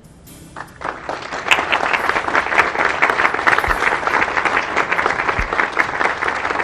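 Audience applauding: the clapping starts about a second in and carries on steadily.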